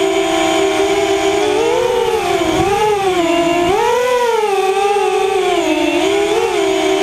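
Quadcopter drone's propellers and motors buzzing in flight, a steady high drone whose pitch rises and falls as the rotors speed up and slow down while it manoeuvres.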